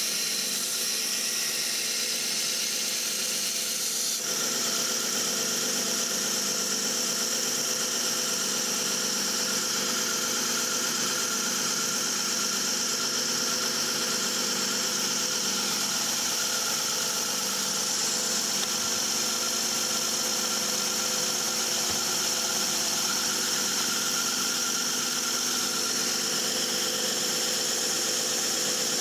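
Small benchtop belt sharpener running steadily, its motor humming under the hiss of the belt, while a steel boning knife blade is sharpened against it. The sound gets a little louder and brighter about four seconds in.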